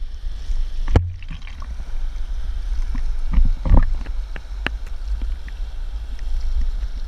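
Water rush and buffeting picked up by an action camera on a pole mounted to a wake foil board riding over the water: a steady low rumble with a few sharp knocks or splashes, the strongest about a second in and around three and a half seconds in.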